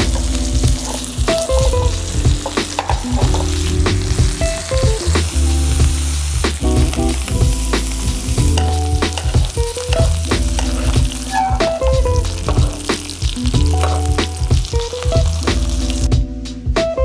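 Beef short rib sizzling as it sears in a hot pan, with clicks and scrapes of a metal spatula turning it, over background music with a steady bass line. The sizzle stops about a second before the end, leaving only the music.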